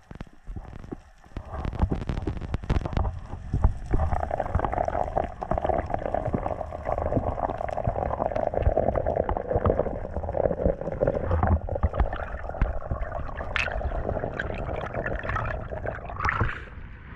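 Muffled underwater noise on a camera held under water: a dense low rumble with steady rushing water as the diver swims up. Sharper splashes come near the end as the camera nears the surface.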